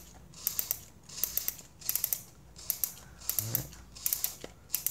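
Holga 120 camera's film-advance knob being turned by hand, its ratchet clicking in short bursts a little under a second apart. The exposed roll is being wound onto the take-up spool after the last of twelve frames.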